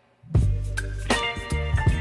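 Music with a deep, steady bass and sharp drum hits starts suddenly about a third of a second in, after a moment of near silence.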